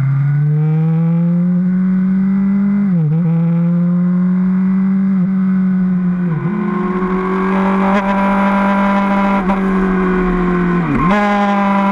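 Suzuki GSR750 inline-four motorcycle engine running hard at high revs, its note holding high and steady with five brief, sharp dips in revs that recover at once.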